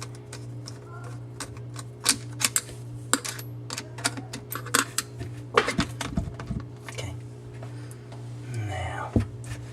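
Irregular sharp metallic clicks and taps of a screwdriver and small metal parts as the access cover on the bottom of an old under-sink garbage disposal is unscrewed and worked off, over a steady low hum.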